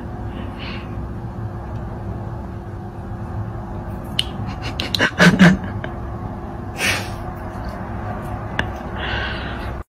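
A dog mouthing and licking a cat's head: scattered sharp mouth clicks and smacks, loudest in a cluster about five seconds in, over a steady low hum.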